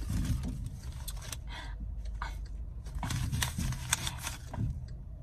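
Paper banknotes crinkling and rustling as a handful of bills is handled, with scattered crackles and clicks, thickest in the second half, over a low steady rumble.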